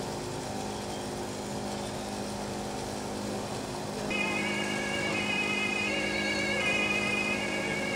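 A steady low hum, then about four seconds in an emergency vehicle's two-tone siren (German Martinshorn) starts up, switching back and forth between two pitches and growing a little louder.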